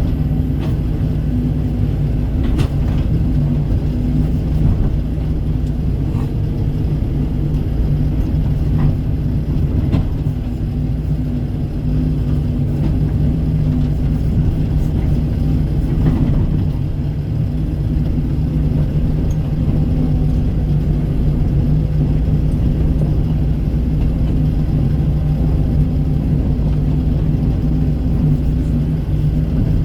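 Kobelco SK135 excavator's diesel engine running steadily under load, with a few short knocks spread through it.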